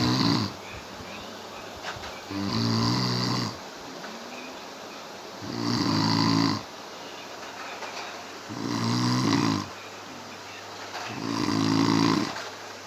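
A person snoring loudly in a steady rhythm: one snore about every three seconds, each lasting about a second, with quieter gaps between them.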